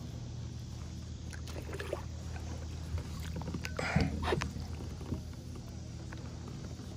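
Plastic fishing kayak on the water: a steady low hum under light clicks and knocks of gear against the hull, with a louder short knock about four seconds in.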